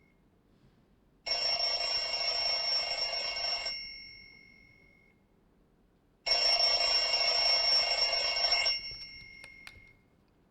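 Alarm clock speaker sounding its alarm: a bell-like ringing tone in two bursts of about two and a half seconds each, the second starting about six seconds in, each trailing off in a brief ring. A few faint clicks near the end.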